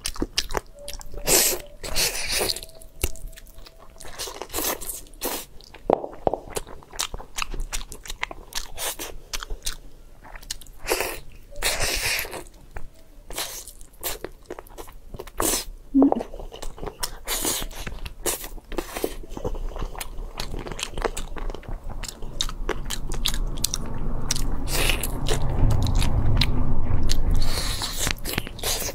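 Close-miked eating of curry-flavoured braised chicken wings: repeated wet bites and chewing with many sharp clicks, growing louder and denser toward the end.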